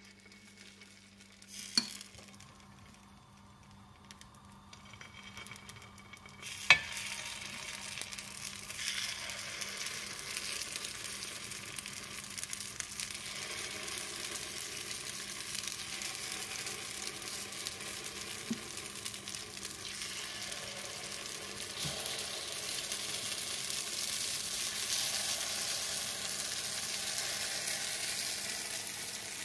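Idli batter sizzling in hot oil as it is spooned into the wells of a kuzhi paniyaram pan. The sizzle starts faint and builds after several seconds as more wells fill. Two sharp taps come in the first seconds, the second louder.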